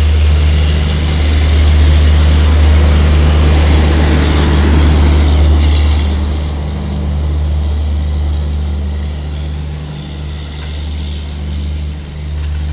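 Indian Railways Garib Rath express coaches rolling past close by, with a steady low drone under a rushing rumble of wheels. The noise swells as the last coach passes about four to five seconds in, then fades as the train pulls away.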